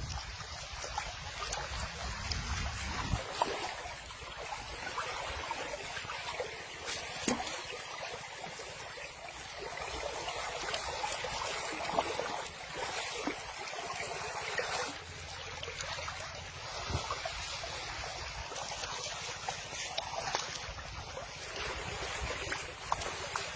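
Water splashing and lapping, with scattered small knocks.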